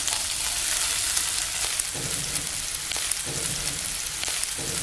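Chopped garlic, ginger and green chilli sautéing in hot oil: a steady sizzling hiss with scattered small pops.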